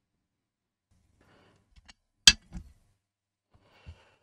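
A plastic spool of desoldering wick set down on the workbench: one sharp clack a little over two seconds in, a softer knock right after it, and a small knock near the end, amid faint handling rustle.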